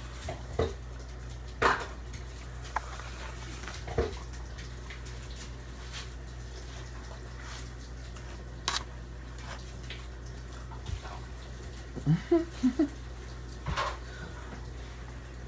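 Scattered clicks and taps of a fork against a foil pie tin as cheesecake is eaten and the tin is handled, over a steady low hum.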